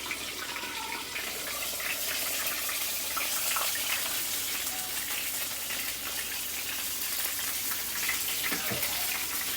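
Battered chicken thighs frying in hot oil: a steady sizzle with small scattered crackles, growing a little louder after the first second or two.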